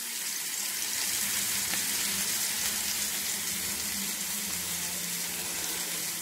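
Bison burger patties frying on the hot flat-top plate of an electric griddle, a steady even sizzle.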